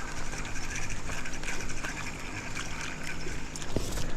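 Water splashing and trickling at the surface as a small bream is reeled in to the boat, with faint ticks over a low steady hum.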